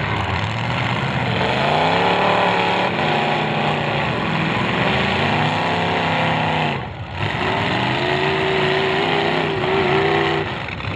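Demolition derby car engines revving hard, their pitch rising and falling over and over as the cars accelerate and back off, with a short drop in level about seven seconds in.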